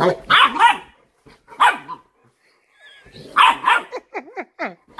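Cane Corso puppy barking during rough play-fighting with his mother: several loud barks, then a quick run of four short falling yelps near the end.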